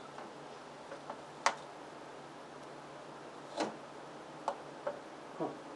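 About half a dozen scattered light clicks and knocks, irregularly spaced, over a faint steady low hum.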